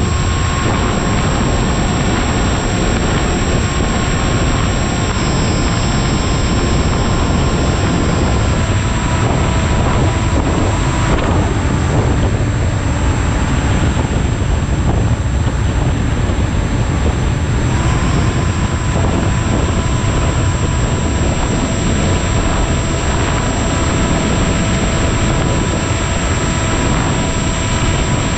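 Electric motor and propeller of an RC Aeroscout plane whining steadily under loud wind rush on the onboard camera. The whine eases off about nine seconds in and climbs back about eighteen seconds in as the throttle is raised again.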